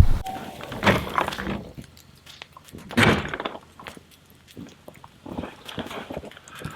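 Footsteps in snow: two louder crunches about two seconds apart, then quieter scattered steps.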